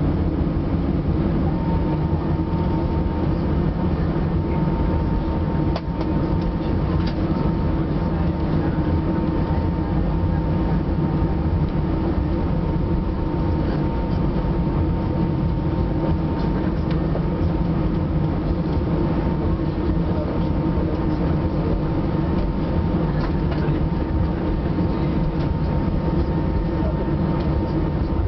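Cabin noise of an Airbus A318 taxiing: a steady low rumble of the engines and rolling gear, with a thin steady whine that comes in about a second and a half in.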